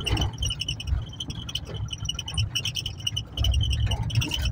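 Car driving, heard from inside the cabin: low engine and road rumble that grows louder about a second before the end. A high, rapid chirping trill continues throughout.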